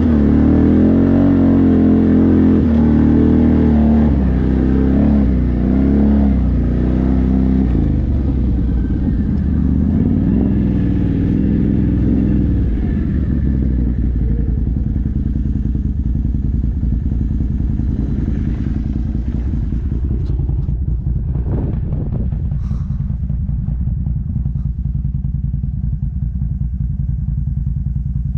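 Can-Am ATV engine running while riding, its pitch rising and falling with the throttle for the first dozen seconds, then settling into steadier, lower running. A few rattles and knocks come a little past the twenty-second mark.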